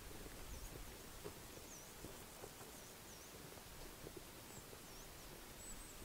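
Faint, thin, high-pitched calls of a small bird: short dipping notes, repeated about once a second, over quiet background hiss.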